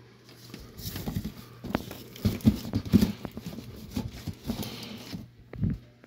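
An old cardboard box being handled and turned over, with irregular knocks, scrapes and rustling of the cardboard, loudest in the middle.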